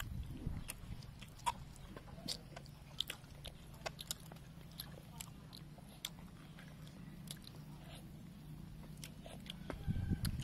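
Close-up eating sounds: chewing and biting meat off oxtail bones, with scattered small sharp clicks and smacks throughout, over a faint steady low background.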